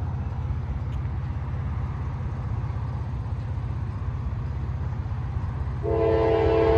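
A steady low rumble, then about six seconds in a freight locomotive's K5LA five-chime air horn starts blowing: a loud chord of several held notes.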